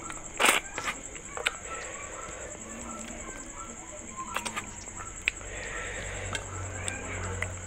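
Eating by hand: fingers mixing rice and fish curry on a metal plate, and chewing with wet mouth clicks and smacks, with one louder burst about half a second in. A steady high insect trill runs underneath.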